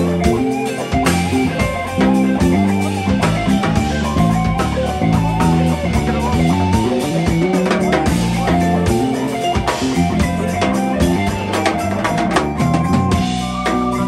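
Live jazz band playing: electric bass guitar with a busy, moving bass line, electric guitar, vibraphone, keyboard and drum kit.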